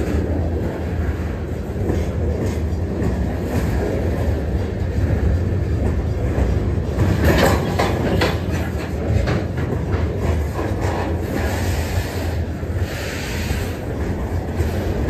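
Freight train's open-top hopper cars rolling slowly past at close range: a steady low rumble of steel wheels with clicking as they cross rail joints. There is a cluster of sharp metallic clanks about seven to eight seconds in, and a brief higher hiss near the end.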